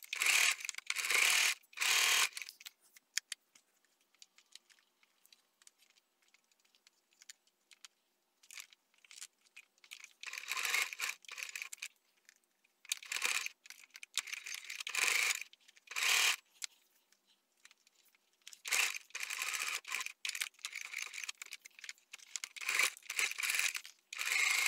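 Domestic sewing machine stitching in short runs of about a second, stopping and starting again and again. A quiet spell of several seconds follows the first two runs.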